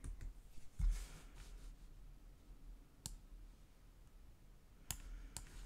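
Computer mouse clicks: one about three seconds in and two near the end, over quiet room tone, with a soft rustle about a second in.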